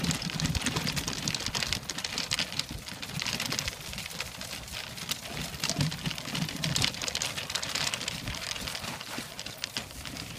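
Dog-drawn wagon rolling along a dirt road: its wheels and rig give a steady crunching rattle, thick with small clicks and patters, under the trotting dogs.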